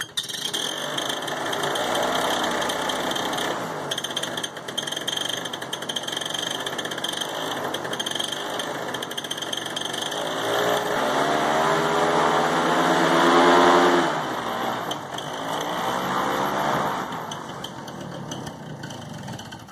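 Mini airboat's MZ-34 two-stroke paramotor engine turning the pusher propeller. It runs steadily, then revs up with rising pitch to its loudest about two-thirds of the way through and drops back abruptly as the throttle comes off.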